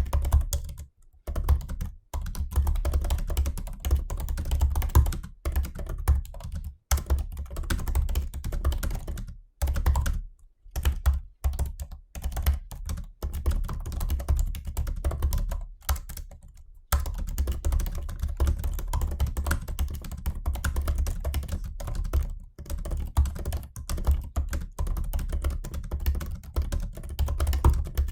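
Fast typing on a MacBook Pro 16-inch (2020) laptop keyboard: rapid runs of light key clicks, broken by short pauses every few seconds.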